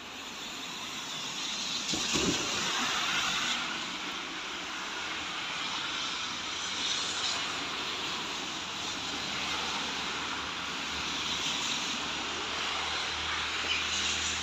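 Road traffic: cars passing on the street, a steady rushing hiss of tyres with a low thump about two seconds in.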